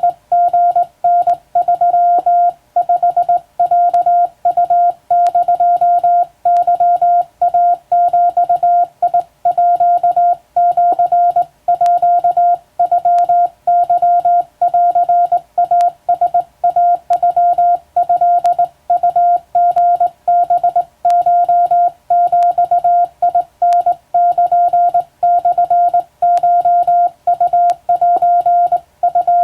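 Hand-sent Morse code on a telegraph key, heard as a single-pitched beep keyed on and off in dots and dashes with short gaps between characters. It is Japanese wabun code at practice speed, sent from a telegram text.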